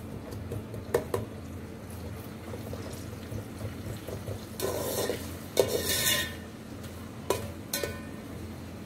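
Long metal spoon stirring sliced onions in hot oil in an aluminium pot, scraping the bottom in two stretches around the middle and clinking against the pot a few times, with the onions starting to fry.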